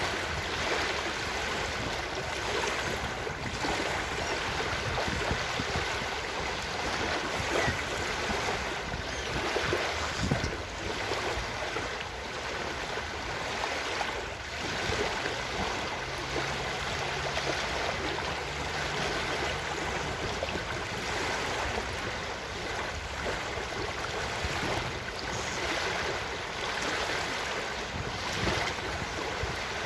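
Ocean surf washing onto a beach in a steady, unbroken wash of waves.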